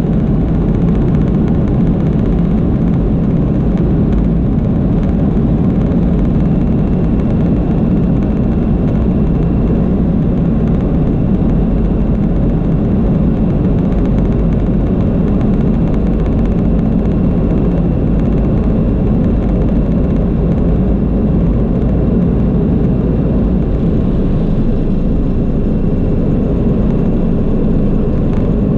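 Boeing 737-200's Pratt & Whitney JT8D turbofans at takeoff thrust, heard inside the cabin: a loud, steady, deep noise through the takeoff roll and into liftoff. A faint steady high whine comes in about halfway through.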